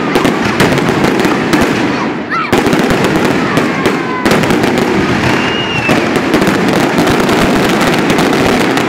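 Aerial fireworks display: a dense barrage of shell bursts over continuous crackling, with a whistling shell rising about two seconds in and another whistle near the middle.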